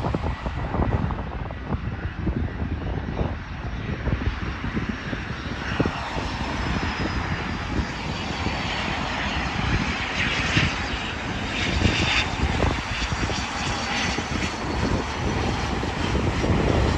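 Cessna Citation XLS business jet's twin Pratt & Whitney PW545 turbofans on final approach and touchdown: a thin high whine that slowly falls in pitch, then a rising hiss as the jet passes low, over a steady rumble of wind on the microphone.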